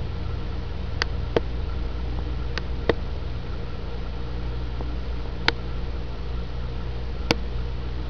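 Steady low hum of background noise, with six short sharp clicks scattered through it.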